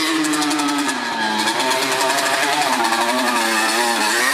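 Yamaha Banshee twin-cylinder two-stroke engine in a four-wheel-drive riding mower, revving up and down as the mower climbs a dirt trail.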